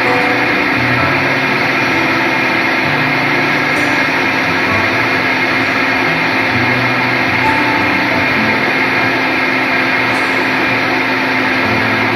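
High-powered countertop blender running steadily at speed, its motor blending a thinned mix of frozen pineapple and coconut milk into a smoothie.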